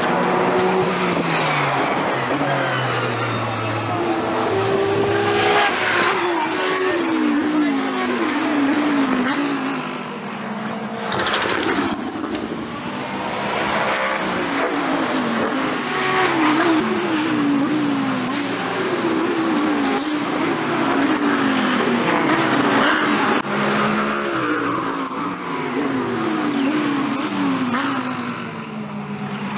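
GT3 race car engines accelerating past one after another. Each one climbs in pitch and drops back through a series of quick upshifts.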